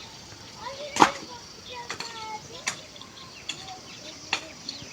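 A series of sharp knocks, five in all, coming roughly one a second, with the first, about a second in, the loudest. Faint voices are heard in between.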